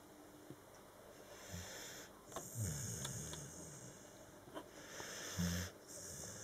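A sleeping pet snoring: slow, noisy breaths with a low, rough snore on the breath, and a short louder burst near the end.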